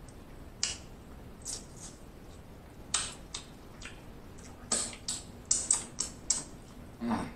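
Close-miked eating of king crab: a string of sharp clicks and crackles from chewing and picking bits of crab shell out of the mouth, sparse at first and more frequent in the second half. A brief hum just before the end.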